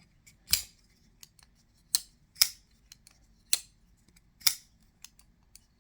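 Kizer x Black Bird Blades Sparrow folding knife being flicked open and closed repeatedly, giving sharp metallic clicks as the blade snaps out and shuts. Five loud clicks come about a second apart, with fainter ticks between them.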